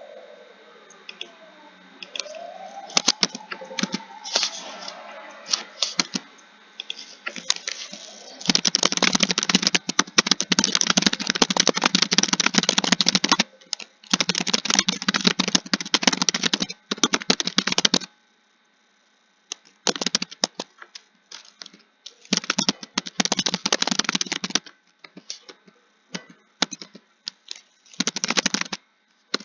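Computer keyboard typing: fast, continuous runs of keystrokes in bursts of several seconds with short pauses between them. The typing is sparse and lighter in the first third, over faint sliding tones.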